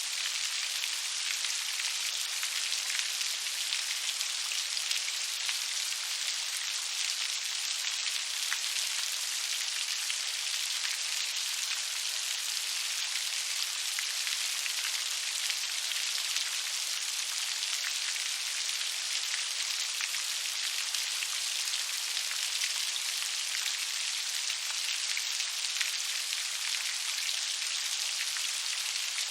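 Steady rain pattering on a surface, an even hiss of many fine drops with no let-up.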